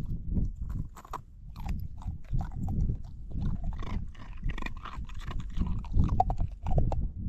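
A dog crunching and chewing chunks of ice, an irregular run of sharp cracking crunches, loudest near the end.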